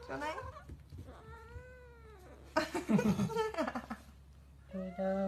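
A kitten yowling in several drawn-out calls while it guards a toy from a reaching hand: a wavering call at the start, a long call rising and falling about a second in, a louder, rougher stretch around three seconds, and another long call near the end.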